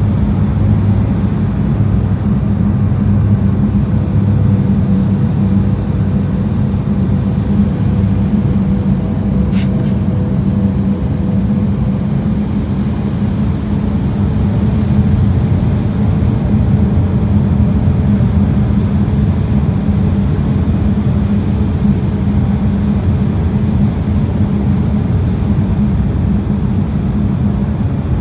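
Turbofan engine and airflow noise inside an airliner cabin on approach to landing: a loud, steady low rumble.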